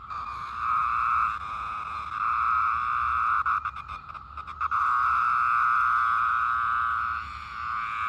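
Periodical cicada held between the fingers buzzing its distress call: a steady buzz that comes in several long swells with short dips between them, the longest lasting about two and a half seconds.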